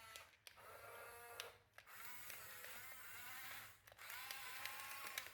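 Small electric motors of a Huina RC bulldozer whining faintly in four short runs, the pitch rising and falling as the throttle changes.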